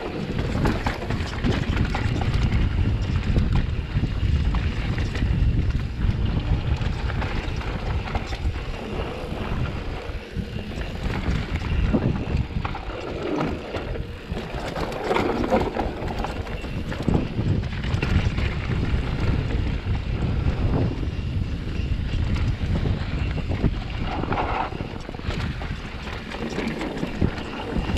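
Wind buffeting the microphone and tyres rumbling over a rough mountain trail as a Specialized Turbo Levo electric mountain bike rides along, with frequent clicks and rattles from the bike.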